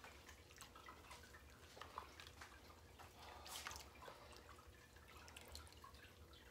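Near silence with faint scattered clicks and taps, the loudest a little after three seconds in: light handling of kitchen bowls and utensils.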